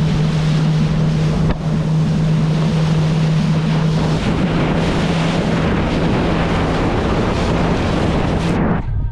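Motorboat under way: the engine's steady drone under heavy wind buffeting the microphone and water rushing past the hull. It cuts off abruptly near the end.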